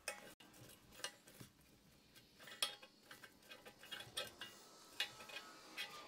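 Faint, scattered light metallic clicks and clinks, about ten small taps at irregular intervals, as a 16 gauge steel plate is worked against the corner of a steel folding chair.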